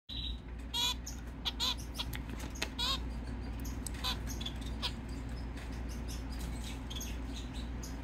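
Pet finches chirping in short calls, several strong ones in the first three seconds and fainter ones after, over a steady low hum.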